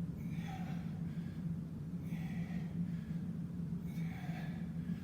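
A man breathing hard during exercise, a sharp breath about every two seconds in time with his reps. A steady low hum runs underneath.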